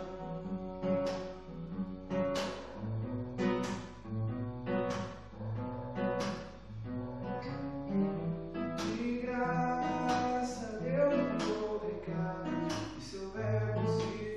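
Cutaway steel-string acoustic guitar strummed in a steady rhythm of chords.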